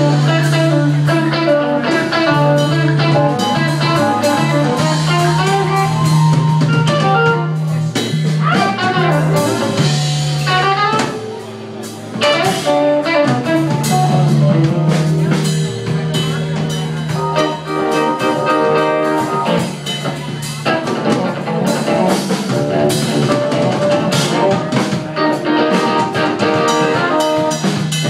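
Live rock band jamming without vocals: electric guitars over bass and a drum kit, with bending guitar lines. The music thins out briefly around twelve seconds in, then builds back up.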